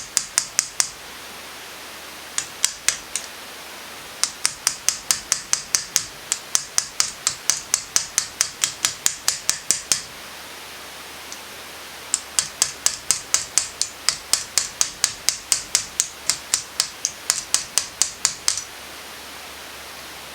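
Quick, light metal-on-metal taps, about five a second, in several runs with short pauses: pliers used as a hammer tapping a piston's wrist pin out.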